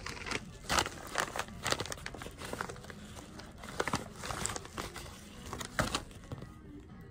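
White plastic mailer bag crinkling and rustling in irregular bursts as it is handled and opened and its contents are pulled out.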